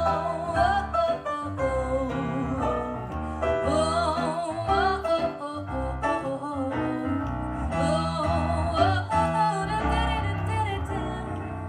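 Background music: a song with a singing voice over instrumental backing and a steady low beat, starting abruptly at full level.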